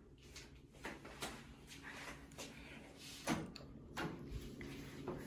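Soft, irregular knocks and clicks of footsteps and handling of a hand-held phone camera, the loudest about three seconds in, over a faint steady hum.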